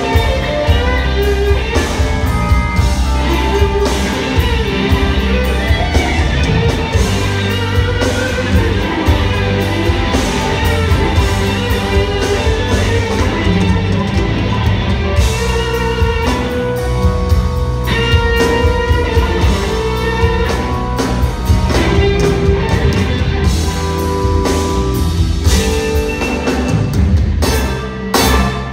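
Live blues band: a Stratocaster-style electric guitar plays bending lead lines over a drum kit and electric bass.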